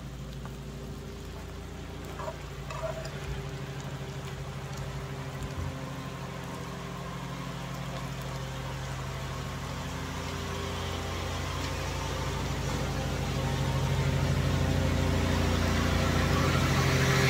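Lawn mower engine running steadily, growing gradually louder toward the end.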